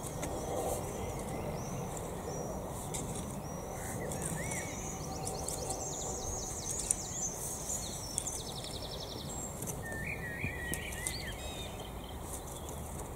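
A garden rake scraping and dragging through damp soil in steady strokes, with songbirds singing over it: two fast trills around the middle and chirping calls a little later.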